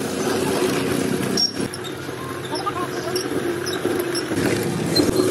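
Busy street noise: traffic and indistinct voices, with a brief dip about a second and a half in.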